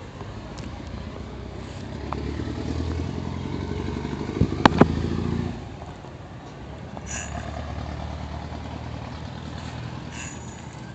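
A vehicle engine running. It grows louder from about two seconds in and drops back abruptly after about five and a half seconds, with two sharp clicks near its loudest point.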